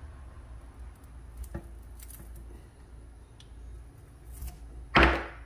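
Old stick-on balancing weights being picked and peeled off a motorcycle wheel rim by hand: faint scratching and a few small clicks, then one loud, short scrape near the end.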